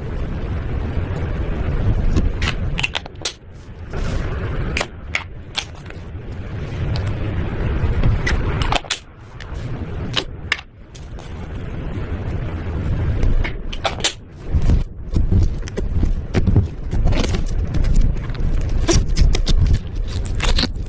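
Slime being mixed and kneaded by hand, with sticky squelching and irregular sharp clicks and pops as it is pressed and pulled.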